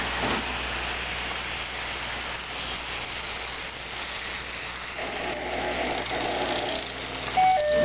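HO-scale model freight train, several diesel locomotives leading, running past on curved track: a steady whir of motors and wheels on the rails. About five seconds in a pitched hum joins, and near the end a short two-note tone sounds.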